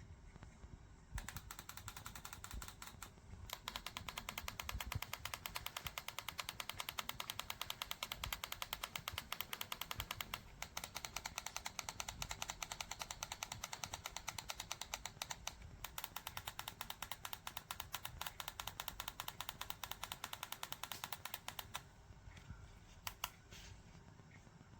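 Rapid, even clicking, many clicks a second, in long runs with a few short breaks.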